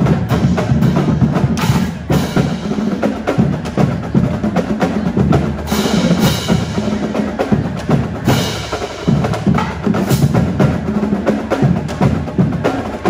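Marching band drumline playing a fast cadence on snare, tenor and bass drums, with cymbal crashes a few times.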